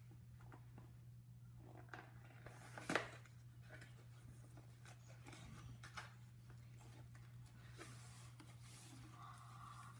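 Faint rustling and handling of a small cardboard box being opened and its contents slid out, with a sharp click about three seconds in, over a steady low hum.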